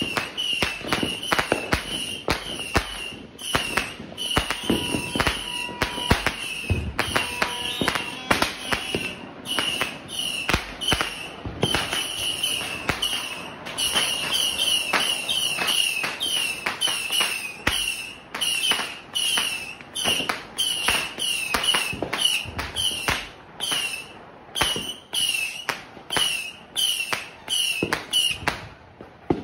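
A 300-shot 'missile' firework cake firing small whistling shots in quick succession, about two a second. Each shot is a brief high whistle and a sharp crack, and the firing stops just before the end.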